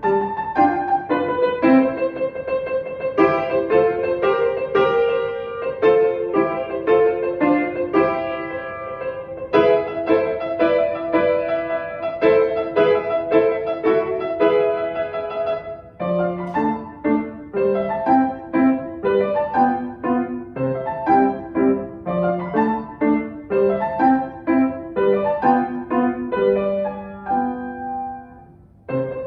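Piano music: a continuous run of struck notes and chords, with a brief break about sixteen seconds in and another just before the end.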